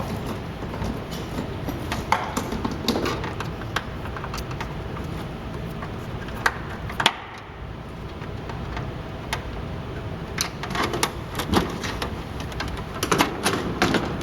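Irregular clicks and taps of a screwdriver backing out screws and handling the plastic and metal casing of an ES&S AutoMARK voting machine during disassembly.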